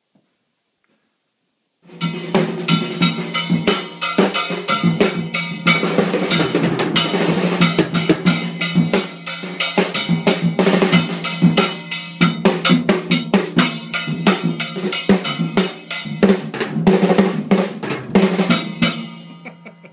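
Silence for the first two seconds, then drum-led music starts: a drum kit with snare and bass drum playing busily, easing off near the end.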